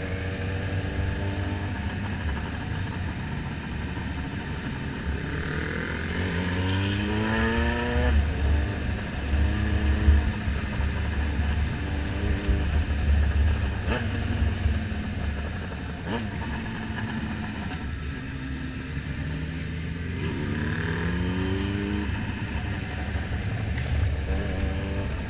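Motorcycle engine pulling hard while riding, its pitch climbing as it accelerates about six seconds in and again about nineteen seconds in, over a steady low rumble of wind on the microphone.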